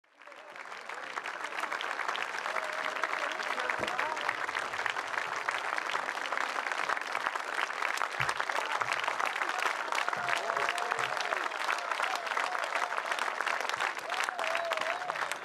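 Large audience applauding steadily, fading in at the start, with a few voices calling out over the clapping. It is the welcome for a performer coming onto the stage.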